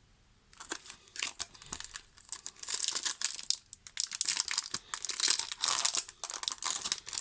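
A foil trading-card packet being torn open and crinkled by hand, with a run of quick irregular crackles starting about half a second in.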